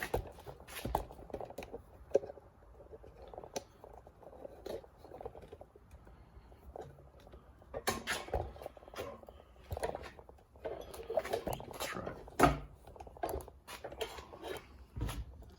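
A removed Hurst floor shifter being handled and worked by hand: irregular metal clicks, knocks and scraping. A sharp knock about twelve and a half seconds in is the loudest sound.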